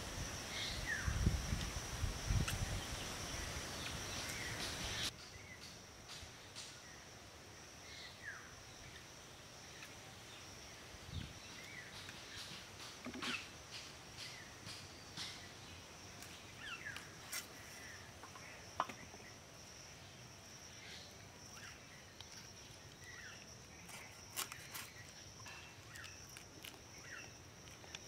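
Outdoor ambience: a steady high insect drone runs under scattered short bird chirps and occasional small clicks. For the first five seconds it is louder, with low thuds and rustling, then it drops to the quieter drone and chirps.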